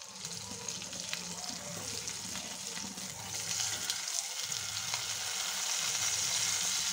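Masala-coated whole fish sizzling in coconut oil in a non-stick frying pan while it is turned over with a spatula and fork, with light taps of the utensils on the pan. The sizzle grows louder from about three seconds in.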